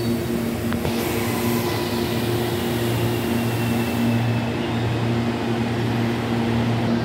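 CPTM Series 8500 electric train pulling into the platform and slowing, a faint falling whine over a steady electrical hum, with a brief hiss about a second in.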